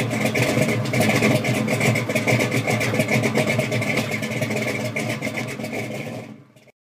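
1966 Chevelle Super Sport's V8 engine running steadily, fading out and cutting to silence near the end.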